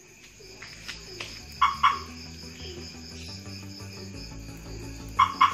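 Car alarm siren giving a double chirp about a second and a half in and again near the end, answering presses of the repaired remote button; the alarm is responding, so the new button works. Crickets chirp steadily behind.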